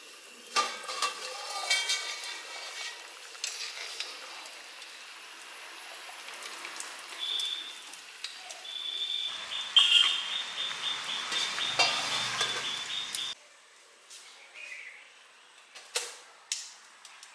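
Steel pot lid clattering as it is handled, then a metal spoon stirring and scraping in a hot pot of biryani, with sizzling, which cuts off suddenly. Near the end comes a single knock as a stone mortar is set down on the closed steel lid.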